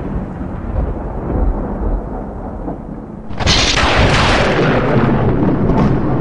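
Thunder rumbling low, then a sharp thunderclap about three seconds in that breaks into a loud, long roll.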